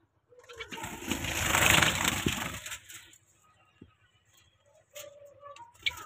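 Rustling and handling noise as a straw-lined clay-pot nest box is opened and looked into. It builds to a loud peak about a second and a half in and dies away by about three seconds, followed by a few light clicks.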